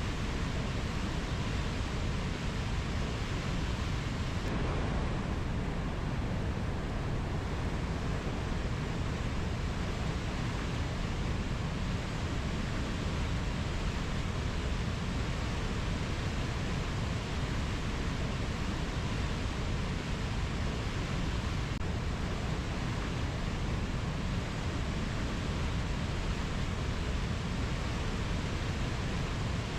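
Steady, even rushing noise of a rainforest nature-sounds track, heaviest in the low end, with no distinct bird or insect calls.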